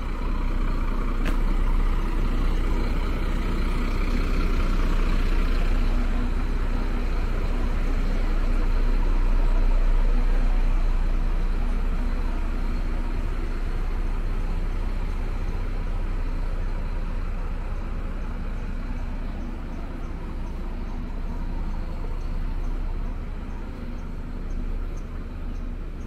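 A motor vehicle's engine running close by: a low, steady rumble that swells to its loudest about ten seconds in and then slowly fades.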